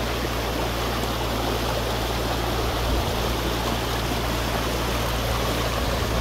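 Small, fast-flowing mountain brook rushing over stones: a steady, unbroken rush of water.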